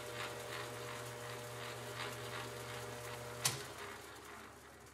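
Benchtop metal lathe with a permanent-magnet motor spinning a heavy, off-centre casting counterweighted with change gears: a steady motor hum and whine. A sharp click comes about three and a half seconds in, the whine stops, and the sound dies away as the spindle coasts down.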